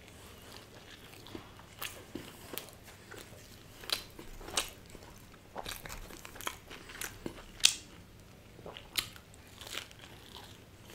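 Close-up chewing and biting of cheese burst pizza: irregular crisp crunches and wet mouth clicks a few times a second, with one sharper crunch about two-thirds of the way through.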